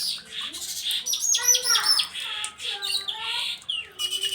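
Streaked weaver (manyar jambul) singing: a quick run of high chirps sweeping downward about a second in, among buzzy chatter and short whistled notes.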